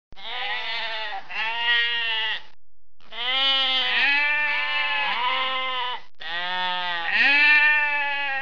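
Sheep bleating over and over, wavering drawn-out bleats that overlap one another in three runs, each cut off abruptly, with short gaps between.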